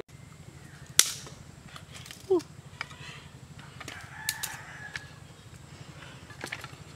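Dry bamboo sticks snapping and knocking as they are broken and pushed under the pan to build a fire. A loud crack comes about a second in, with lighter snaps after. A short call that rises and falls sounds once, about two seconds in.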